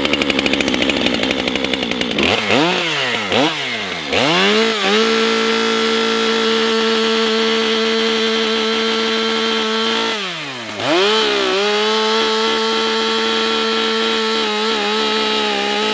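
Gas STIHL two-stroke chainsaw cutting through a log: a fast stuttering low-rev run, then three quick revs, then a steady high full-throttle note as the chain cuts. About ten seconds in the pitch dips and climbs back to full throttle for the next cut.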